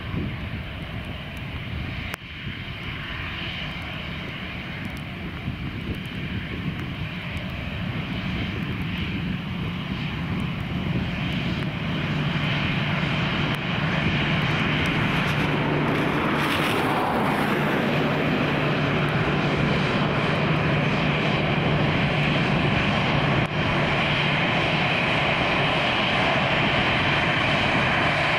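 Airbus A320's twin jet engines at low taxi power: a steady hum with a whining hiss above it. It grows louder over the first dozen or so seconds as the airliner draws near, then holds steady.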